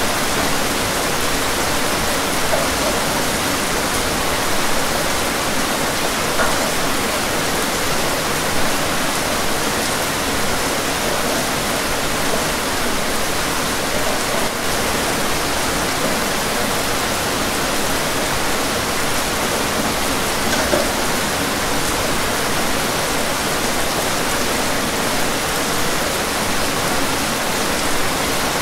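Steady rain falling on a window, a dense even hiss with a few louder drops standing out now and then.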